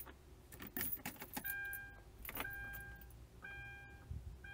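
Keys jingling and clicking as the ignition key of a Hyundai Santa Fe is put in and turned, then the car's dashboard warning chime sounding about once a second, each chime a clear tone about half a second long.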